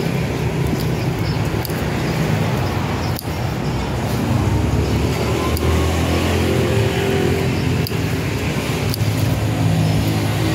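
Scissors snipping lettuce stems, a handful of sharp clicks a second or more apart, over a loud, steady low rumble with a hum.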